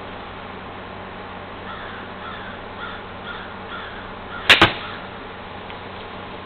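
A golf club striking a ball in a full swing: one sharp, loud crack, heard as two clicks about a tenth of a second apart, about four and a half seconds in.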